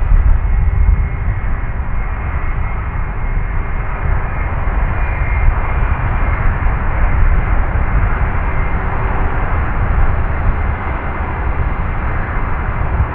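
Airbus A319 jet airliner's IAE V2500 turbofan engines running loudly and steadily: a deep rumble with a dense hiss above it and a faint high whine in the first half.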